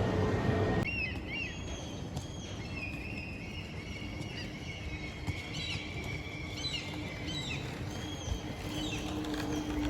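Birds chirping and singing, a string of short whistled notes that slide up and down, over a quiet background with a faint steady low hum. A louder rushing noise cuts off abruptly under a second in.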